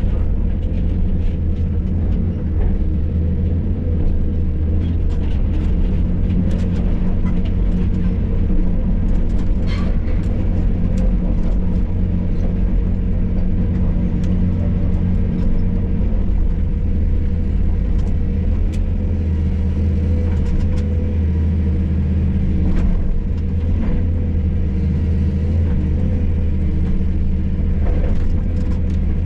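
Hydraulic excavator's diesel engine running steadily under load, heard from inside the cab, with scattered knocks and clatter of rubble being scooped and loaded.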